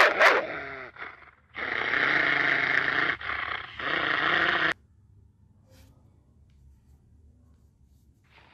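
Dog barking twice in quick succession, then a long, rough growl lasting about three seconds, with a brief break partway through.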